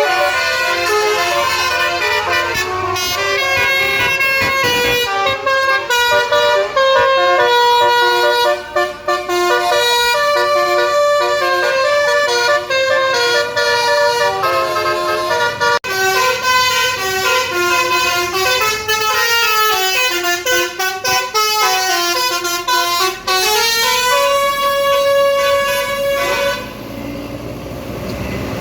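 Bus 'telolet basuri' multi-trumpet musical air horn playing a tune, several horn tones sounding together and changing note in steps, with a few swooping notes. The horn stops abruptly near the end.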